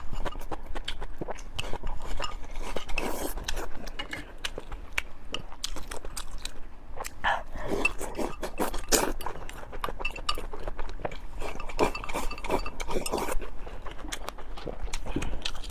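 Eating sounds: steamed pork being chewed, with frequent small clicks and clinks of utensils against a dish.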